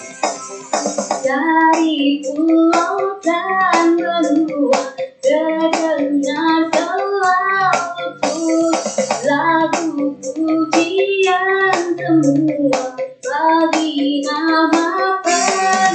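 A child's voice sings a praise action song over a backing track with a steady beat.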